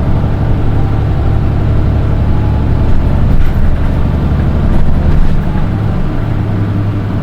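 Diesel engine of a Nissan Diesel Space Runner RM (PDG-RM820GAN) city bus running steadily, heard from inside the bus. It has a faint high-pitched tone over the low engine note, the unusually shrill engine sound that sets this one bus apart from others of its model.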